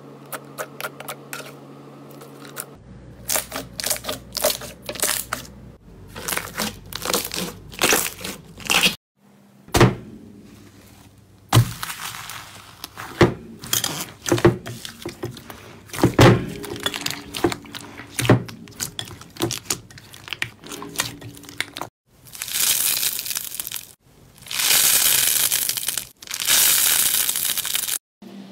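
Hands pressing, squeezing and kneading slime: a run of sticky pops and crackles, some in quick clusters, followed near the end by three long hissing rustles of about two seconds each.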